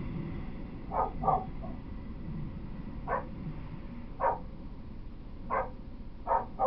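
A dog barking, about seven short barks, some in quick pairs, spaced a second or so apart, over a low steady rumble.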